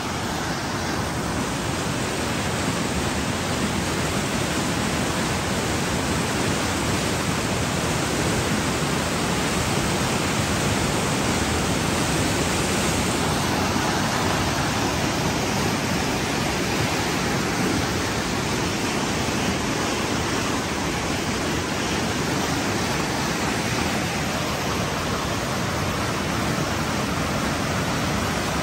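River rapids: fast white water rushing over rocks and boulders in a steady, unbroken rush.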